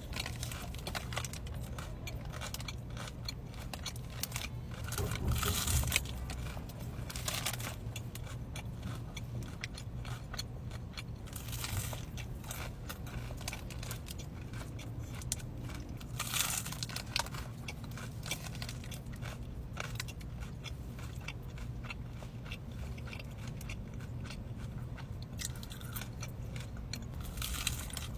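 Close-up eating sounds: a person biting and chewing crunchy food, a steady run of small crackles broken by several louder crunching bites.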